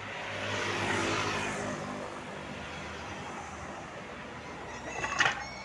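A road vehicle passes by with engine and tyre noise, swelling to its loudest about a second in and then fading. Near the end a brief, loud, high-pitched sound is heard, and then everything cuts off suddenly.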